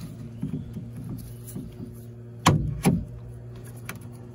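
Cutting pliers snapping the plastic internals of an old car-door speaker: two sharp snaps about half a second apart, over a steady low hum.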